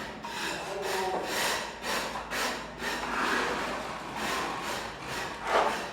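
Rhythmic rubbing or scraping strokes, about two a second, from a hand tool working a surface.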